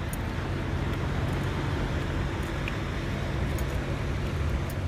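Steady low hum of a car running, with road noise.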